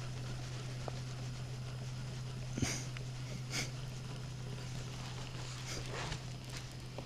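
A few short sniffs from someone with a head cold, over a steady low hum, with one sharp click about two and a half seconds in.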